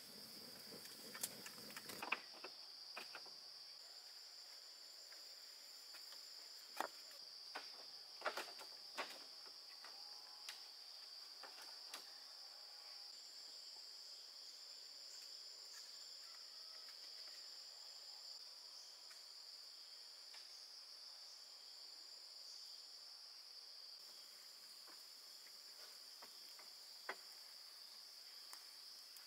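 Steady, high-pitched insect chorus, a continuous trill. Scattered sharp clicks and knocks come over it, several in a cluster around the middle and a single one near the end.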